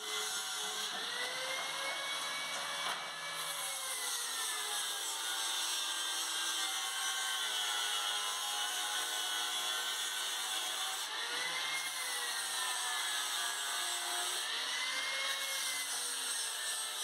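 Electric angle grinder running, its motor whine rising and falling several times as its speed changes under load.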